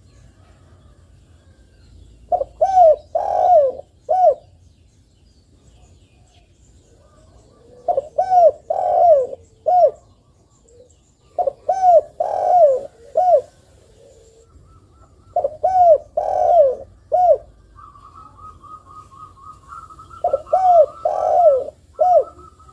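Spotted dove cooing: five phrases of several arched, low notes each, about one every four seconds.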